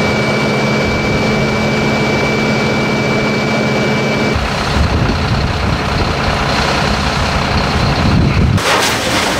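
Fire engine running with a steady engine hum and a high, steady whine over it for the first four seconds. About four seconds in, the sound changes to a deeper, rougher rumble, and near the end a loud hiss comes in.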